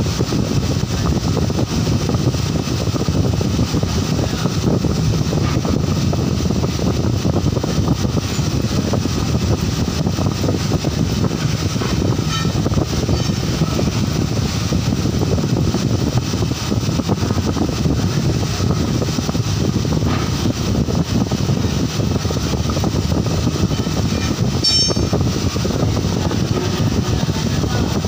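Steady low rumbling noise of a machine's fan running without a break, with a brief run of faint clicks near the end.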